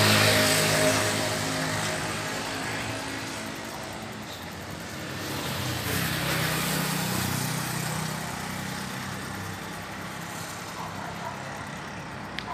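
Street traffic: cars passing on the avenue, one loud right at the start and fading over a couple of seconds, and another swelling past about six seconds in, over a steady road hum.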